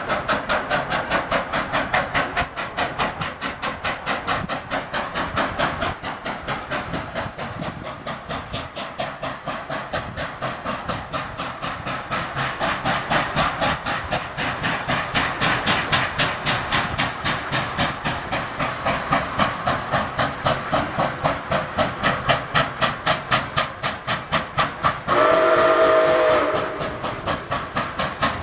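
Nickel Plate Road 765, a 2-8-4 Berkshire steam locomotive, working toward the listener with a fast, steady beat of exhaust chuffs that grows louder as it approaches. About 25 seconds in, its chime whistle sounds one short blast of about a second.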